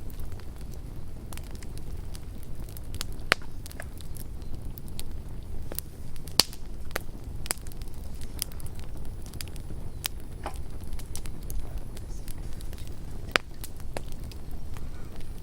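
Campfire crackling: irregular sharp pops and snaps over a steady low rumble, the loudest pops about three and six seconds in.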